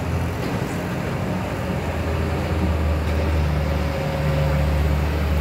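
Hino tanker truck's diesel engine pulling under load up a steep hairpin, a low rumble that grows louder from about halfway through as the truck comes closer.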